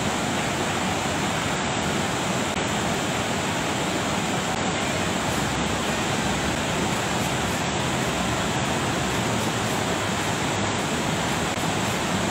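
Flooded mountain river running fast and muddy: a steady, even rush of churning water.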